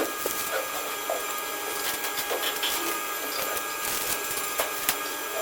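Overlock sewing machine running steadily, an even mechanical whirr with a few sharp clicks.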